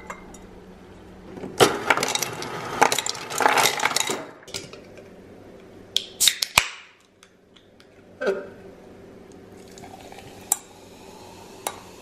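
A glass clinks, then ice cubes clatter into a stemless wine glass in a quick dense run of clinks lasting a couple of seconds. After that come a few single sharp knocks and clinks, and near the end a faint steady fizz.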